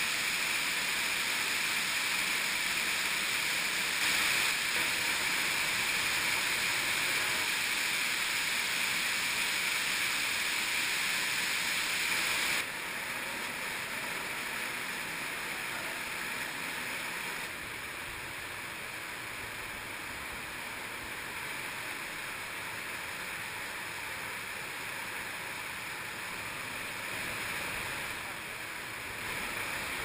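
Waterfall in a cave streamway plunging into a pool: a steady rush of falling water. About twelve seconds in it drops suddenly to a quieter rush of flowing stream water.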